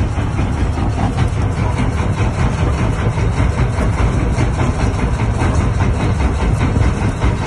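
Small boat's engine running steadily with a low, even throb.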